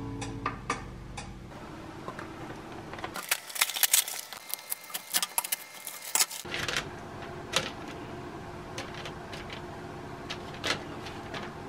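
Irregular light clicks and taps, loudest in a cluster about three to six seconds in, with background music fading out in the first second or two.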